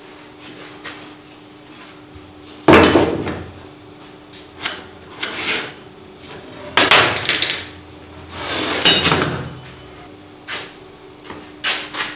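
Wooden frame pieces being knocked and set down on a wooden bench, in separate sharp knocks with scraping and handling between them; the loudest knocks come about three, seven and nine seconds in.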